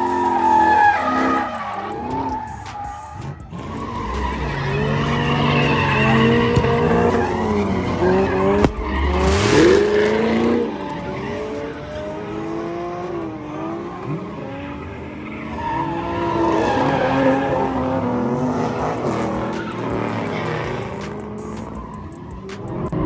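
Car engines revving up and down with tires squealing and skidding on pavement, as in burnouts at a street takeover.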